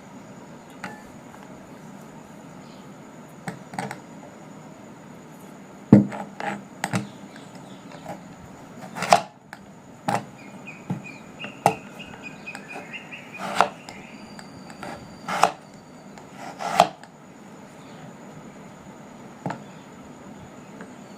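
Knife striking a wooden chopping board: about a dozen irregular, sharp knocks, most of them bunched in the middle, in kitchen food preparation.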